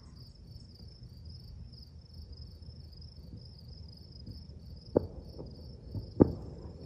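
Distant fireworks booming, a few dull thumps that arrive well after the flashes, the two loudest about five and six seconds in. Under them, insects chirr steadily in a high, pulsing drone.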